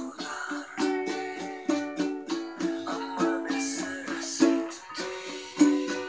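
Córdoba ukulele strummed in a steady rhythm of chords, about three strums a second, with a chord change about five seconds in.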